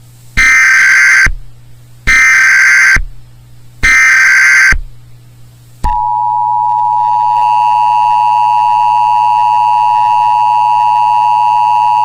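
Emergency Alert System tones announcing a tornado warning. First come three roughly one-second bursts of the SAME digital header, a buzzy screeching data sound. Then, about six seconds in, the steady two-tone EAS attention signal starts and holds.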